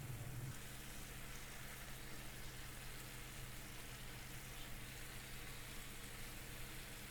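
Marinated paneer cubes sizzling faintly in a little oil on a non-stick tawa, over a steady low hum.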